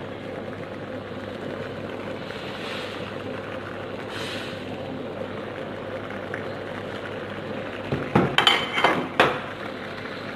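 Chicken curry simmering in a wok with a steady bubbling hiss while a steel ladle stirs it. About eight seconds in, the ladle clinks and scrapes against the wok several times in quick succession, the loudest sounds here.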